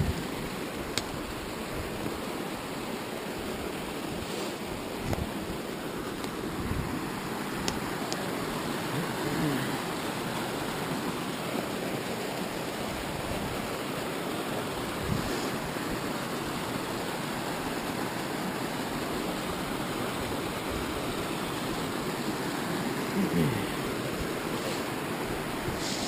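Small mountain creek cascading over rocks, a steady rushing hiss throughout, with a few brief knocks and snaps scattered through it.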